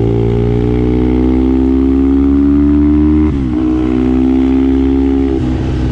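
2006 Triumph Thruxton's parallel-twin engine pulling under throttle through a Torpedo muffler, revs climbing steadily. About three seconds in the revs drop briefly, as on an upshift, then climb again. Near the end the even engine note breaks up into a rougher, noisier sound.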